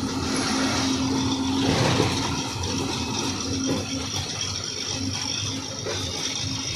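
Diesel engine of an Ashok Leyland 14-tyre truck running at road speed, heard from inside the cab together with steady road noise.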